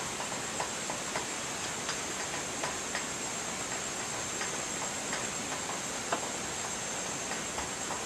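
Aerial tram gondola running along its steel cable: a steady high hiss with light, irregular clicks and ticks, and one sharper click about six seconds in.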